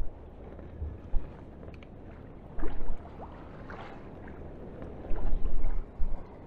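Wind buffeting the microphone in several loud low gusts, over the steady wash of choppy sea against a small inflatable boat.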